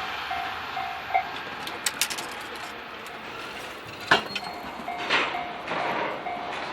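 Railway level-crossing warning bell ringing about twice a second, then stopping a little over a second in; a few sharp clicks follow, and about four seconds in the bell starts ringing again as the crossing warns for the next train. Train noise swells toward the end.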